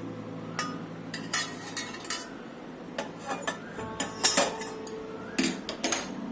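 A metal spoon clinking and tapping against a glass jar in short, irregular strikes, with the busiest clusters around four seconds in and again near the end.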